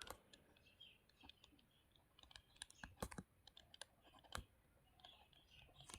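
Near silence with faint, scattered light clicks and taps, a couple of them a little louder about three and four seconds in.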